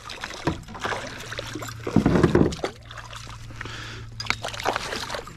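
A hooked chain pickerel splashing and thrashing at the water's surface beside a kayak as it is reeled in and lifted out, water sloshing and dripping, with a louder burst about two seconds in.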